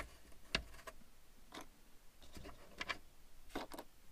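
A few irregular light clicks and taps of a screwdriver and fingers working on plastic dashboard trim while the Phillips head screws under its covers are taken out.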